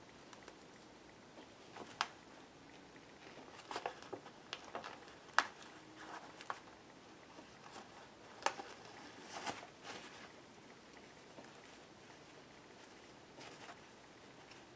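Faint rustling of a magazine-paper bag and jute twine being handled while the twine is threaded and knotted through a grommet, with a few sharp ticks and taps scattered through it.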